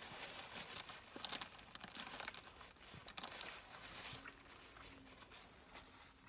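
Faint rustling and crinkling with scattered small clicks, like handled paper or plastic.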